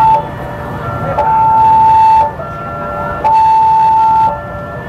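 Railway level-crossing warning alarm sounding a repeating two-tone signal, a louder higher tone alternating with a lower one about every second: the crossing is closed for an approaching train.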